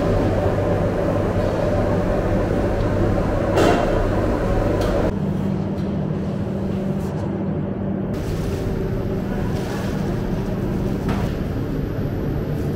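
Steady low hum of kitchen machinery, with a few short clinks of utensils. The hum shifts to a different steady tone about five seconds in.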